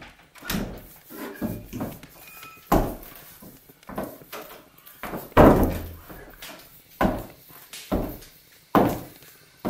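Slow, heavy thumps on wooden floorboards about every second, from boots walking across the room, with a wooden door thudding shut about five seconds in.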